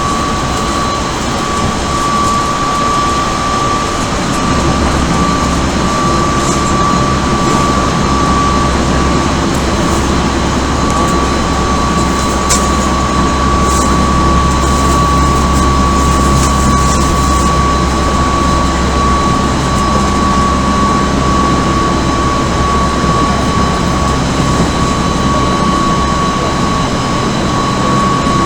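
Odakyu 1000 series electric train with Mitsubishi GTO-VVVF inverter running at speed, heard from inside the car. A steady, almost level high whine sits over dense rumbling running noise, and a deeper rumble grows about four seconds in. A few faint clicks come through.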